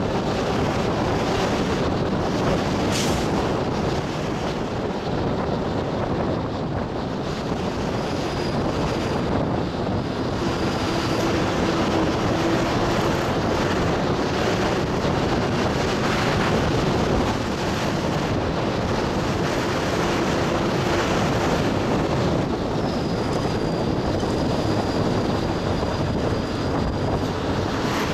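Steady running noise of a bus heard from inside the cabin: engine and tyre rumble on a wet road. A faint high whine comes and goes, and there is one brief click about three seconds in.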